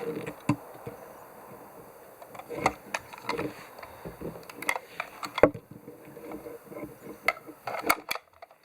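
Clicks, taps and knocks of small parts being handled while a Heiwa pachinko machine's firing handle is taken apart, with one sharp click about halfway through and a quick cluster near the end.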